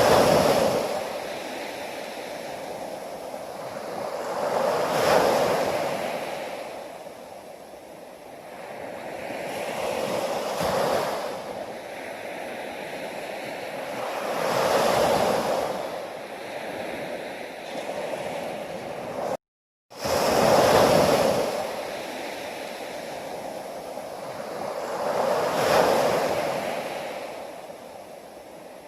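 Ocean waves breaking and washing back, swelling and fading about every five seconds. The sound cuts out completely for about half a second about two-thirds of the way through.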